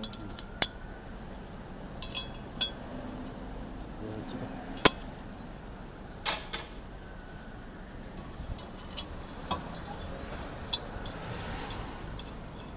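Scattered metallic clinks and clicks of a steel wrench and brackets being handled as an on-car brake disc lathe is bolted up and fitted around a brake disc. One sharp click about five seconds in is the loudest.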